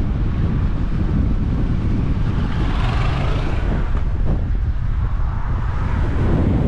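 Strong wind buffeting the microphone: a steady low rumble, swelling about three seconds in.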